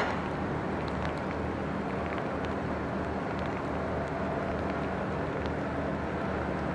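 Steady low engine drone under an even hiss, with scattered faint ticks of raindrops and one sharp click right at the start.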